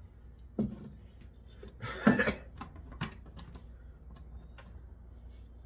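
Metal knocks and clicks from working at a bench grinder's cast aluminum cover to pull it off, with one short, louder scraping clatter about two seconds in.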